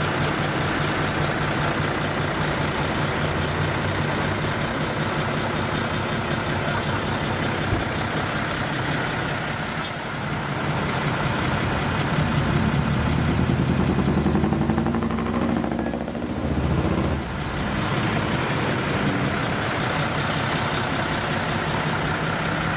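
Decorated truck's diesel engine idling steadily through a manifold-split (mani-wari) exhaust. A few seconds past the middle it grows louder and deeper, then drops back suddenly.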